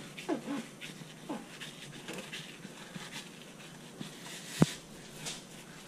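Dog whimpering in short whines that bend up and down, mostly in the first second and a half, with light scraping of a knife on a cutting board. A single sharp knock about four and a half seconds in is the loudest sound.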